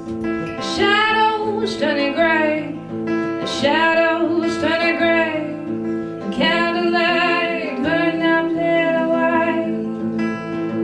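A woman singing live into a microphone in several sung phrases, over a guitar accompaniment of steady held notes.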